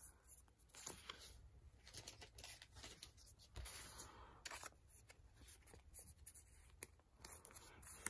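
Faint rustling and soft clicks of Pokémon trading cards being slid one behind another in the hands, with a card laid down on the carpet near the end.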